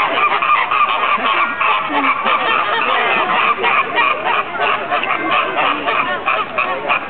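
A flock of flamingos calling: many short honks overlapping in a dense, continuous chorus.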